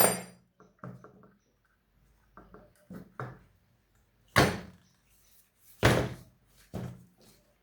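Irregular knocks and clunks of metal ceiling fan parts and a spanner being handled and set down while the fan is taken apart, about seven in all, the loudest two a second and a half apart past the middle.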